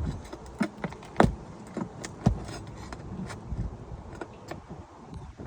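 Metal hand tool working roofing nails loose from under shingles: a run of sharp metallic clicks and knocks, with two louder ones about one and two seconds in.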